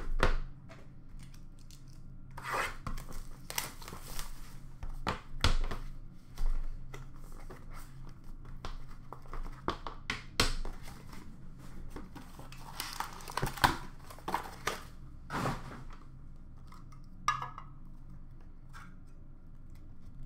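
Hockey card packs and box packaging being torn open and handled: wrappers tearing and crinkling, cardboard scraping, in irregular bursts with a few sharp clicks, dying away near the end.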